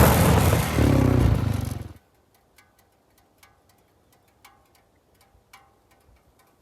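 A small vehicle engine running under heavy rushing noise, as when riding with wind on the microphone, cutting off abruptly about two seconds in. Faint, evenly spaced plucked ticks follow.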